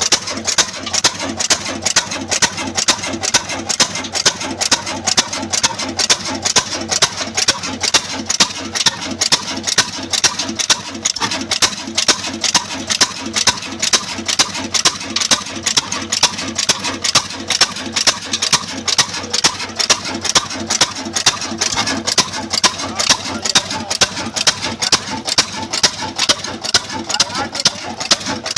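Old stationary Ruston-type diesel engine running at a steady slow speed. Each firing stroke gives a sharp, evenly spaced beat over its mechanical clatter.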